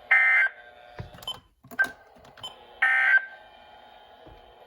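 Two short electronic beeps about two and a half seconds apart, each a chord of several steady tones. A few faint clicks fall between them, over the weather radio broadcast's steady background hiss.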